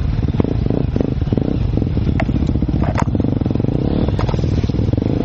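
Enduro dirt bike engine running close up as the bike rides a rough trail, with a few sharp knocks and clatter about two, three and four seconds in.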